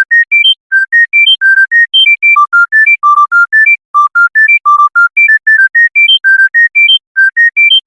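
A smartphone ringtone melody: short, clean, high notes played quickly, about six a second, mostly in rising runs that repeat.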